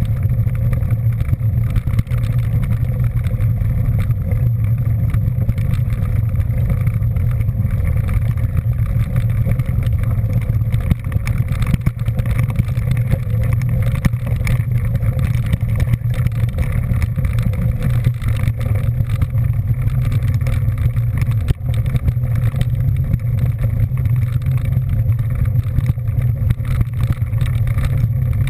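Steady rumble of a vehicle moving at an even speed: engine and road or wind noise that holds level throughout, with no revving or gear changes.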